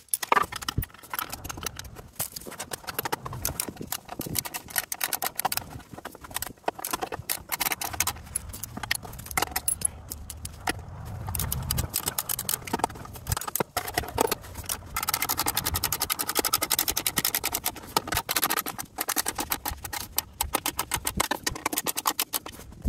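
Metal hardware clinking and clicking as bolts, washers and nuts are handled and fitted while a skid plate is fastened. Scattered sharp clicks are followed past the middle by a few seconds of fast, even ratchet-like clicking.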